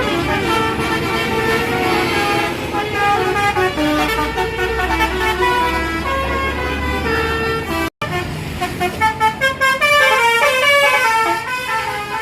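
Bus basuri horn playing a tune in stepped notes. It breaks off for an instant just before eight seconds in, then comes back as a rapid stuttering run of toots, about four a second, before the melody goes on. A low engine rumble lies under it for a few seconds before the break.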